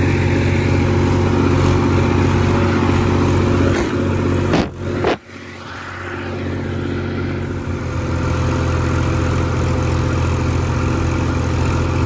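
Massey Ferguson 241 tractor's three-cylinder diesel engine running steadily. A little over four seconds in, the sound drops away briefly with two sharp clicks, then the engine comes back and builds up over a couple of seconds.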